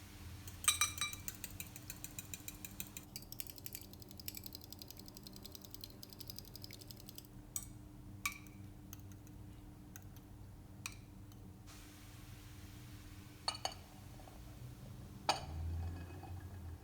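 Eggs being beaten by hand in a bowl for an omelette: a fast, even clinking of the utensil against the bowl for about six seconds, then a few separate clinks and taps of dishes.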